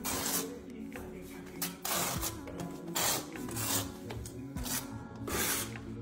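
Steel notched trowel scraping and combing tile adhesive across a surface, in several separate strokes about a second apart.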